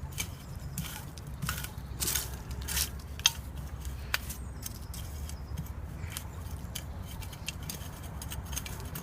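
Scattered irregular clicks, crackles and scrapes of close handling, over a low steady rumble.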